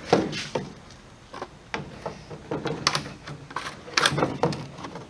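Thin plastic chainsaw bar sheath being handled and slid onto a 20-inch bar, with a series of light clacks and knocks of plastic on the bar.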